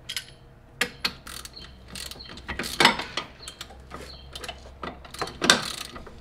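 Hand ratchet clicking in short irregular runs, with metallic clinks, as the freshly loosened 18 mm bolt holding the strut to the lower control arm is backed out.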